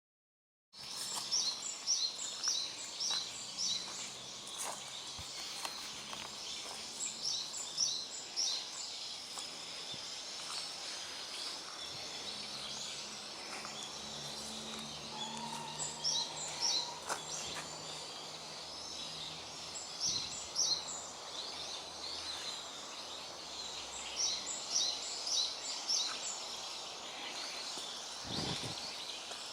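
Small wild songbirds calling in short runs of quick, high, sharp notes, repeated every few seconds over a steady background hiss. The uploader takes these calls as the birds' alarm calls warning of an earthquake.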